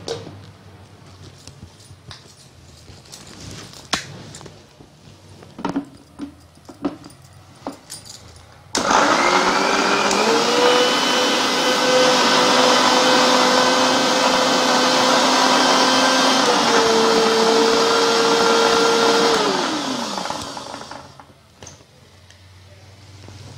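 A few light clicks and knocks as the steel jar is handled and set on its base. About nine seconds in, an electric mixer grinder switches on; its motor whine rises to speed and runs steadily for about ten seconds while it grinds chopped carrots and khoa to a paste, dipping in pitch once. It then winds down with a falling whine.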